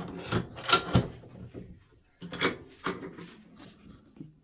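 Handling knocks and clunks of AR-15 rifle parts being moved and set upright on a workbench: a series of sharp knocks over the first few seconds, the loudest about a second in, with quieter rattling between.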